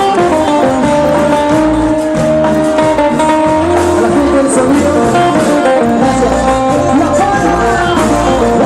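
Live band playing cumbia, with sustained melody lines over a continuous accompaniment.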